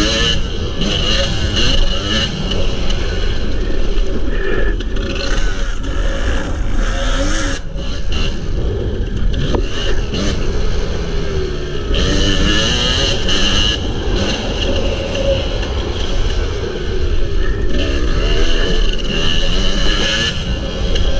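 Kawasaki KDX250 single-cylinder two-stroke dirt bike engine revving hard and falling back again and again while riding a dirt track, with wind noise over the microphone.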